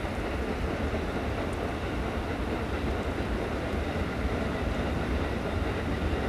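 KiHa 85 series diesel railcar moving slowly on a shunting run, its diesel engines a steady low rumble.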